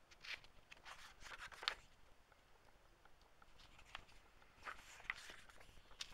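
Faint paper rustling and brushing as the pages of an old hardback book are handled and turned by hand, in short scrapes during the first two seconds and again around four to five seconds in.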